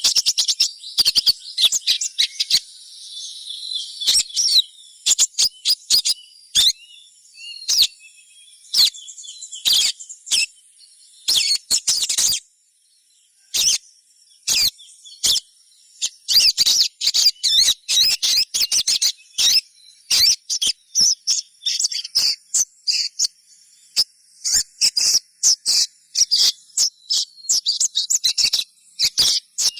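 Sogon (crimson sunbird) giving rapid, very high-pitched 'cuit-cuit' chirps and twitters in quick bursts, with a short lull about twelve seconds in. These are the trilling calls used to lure other sogon into calling, with a faint steady high insect-like hum beneath.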